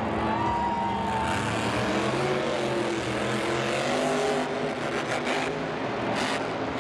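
Monster truck's supercharged V8 engine revving, its pitch rising and falling with the throttle.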